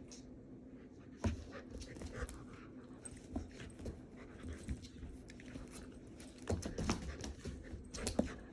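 Belgian Malinois puppies panting during rough play-fighting, with scattered scuffling knocks: one about a second in and several close together near the end.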